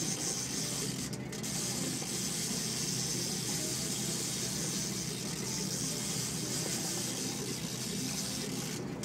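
Fishing reel working while a big fish is fought on the line, a steady mechanical whirr, over a constant hiss of wind and water.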